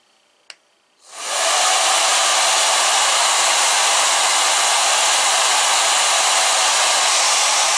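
Tool Science Moisture Balance Digital Pistol Dryer, a 1600-watt hair dryer, switched on: a single click about half a second in, then the motor and fan spin up within about half a second and the dryer runs steadily, pretty loud, with an even rush of air.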